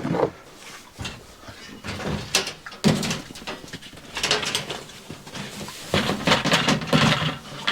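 Pigs grunting at feeding time amid knocks and rustling from the feed being handled.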